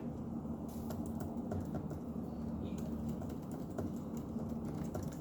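Computer keyboard typing: light, irregular key clicks over a steady low background hum.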